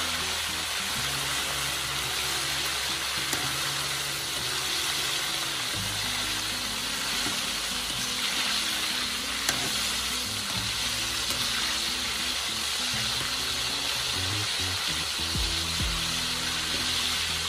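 Chunks of marinated goat meat deep-frying in hot oil in a wok: a steady sizzling crackle, stirred with a slotted metal ladle, with one sharp click about halfway through.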